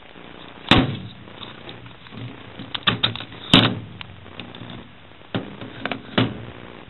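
Microwave oven door and latch clacking as the door is opened and shut, a series of sharp clicks and knocks with the oven's hum off; the loudest knocks come just under a second in and about three and a half seconds in.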